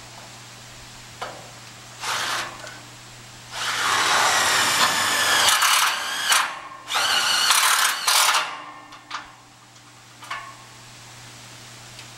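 A power drill running in three bursts: a short spurt about two seconds in, a long run of about two and a half seconds, then another of just over a second, its whine shifting in pitch as it runs. A few light knocks come between the bursts.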